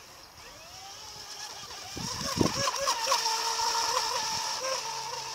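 Small RC mono racing boat's Tenshock brushless electric motor and propeller running at full throttle: a high whine that climbs in pitch and grows louder over the first two seconds, then holds steady with slight wavers. A few low thuds come about two seconds in.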